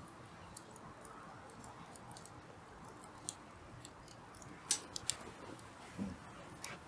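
Hardwood fire crackling, with scattered sharp pops at irregular moments, the loudest a little under five seconds in.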